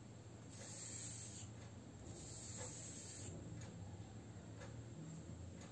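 Chalk scraping across a cement floor in a few soft strokes of about a second each, drawing the curved lines of a rangoli design.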